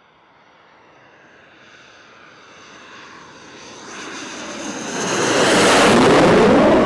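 Saab JAS 39 Gripen fighter jet's single Volvo RM12 turbofan on approach with its landing gear down: a jet whine that swells steadily and becomes very loud as the jet comes close, about five seconds in.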